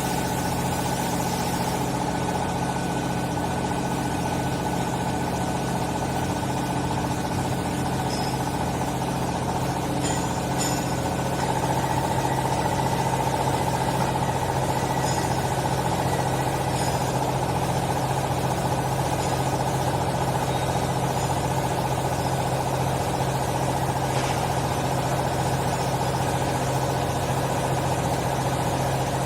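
A vertical baler's electric motor and hydraulic pump running steadily with a deep hum. About eleven seconds in, a higher whine comes up and the sound gets a little louder.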